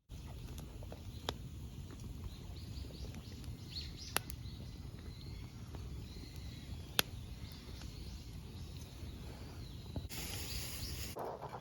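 Wood fire burning with a steady low rumble and three sharp pops of the wood, about three seconds apart, with faint bird chirps behind and a brief rustling hiss near the end.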